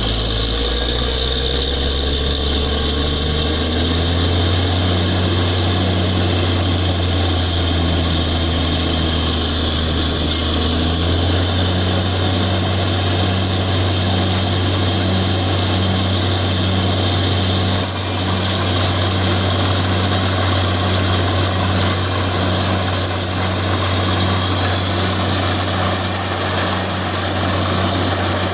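Borewell drilling rig running. Its engine speeds up over the first few seconds and then holds a steady, loud drone, and a high steady whine joins about two-thirds of the way through.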